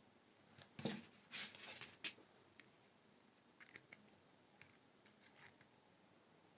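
Faint, scattered clicks and short scrapes of brass jewelry wire and small hand tools being handled. The loudest moment is a slightly longer scrape about a second and a half in.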